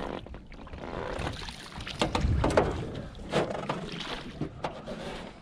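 Splashing water as a hooked trout is netted at the surface beside a small jon boat, with scattered sharp knocks and clatter.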